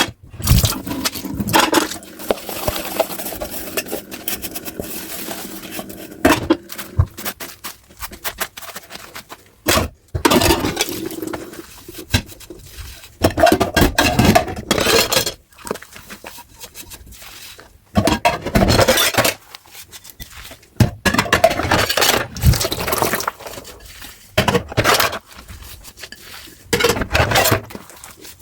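Dishes and cutlery being washed in a sink: plates and utensils clinking, knocking and scraping against each other, in irregular bursts, between stretches of hiss that may be running water.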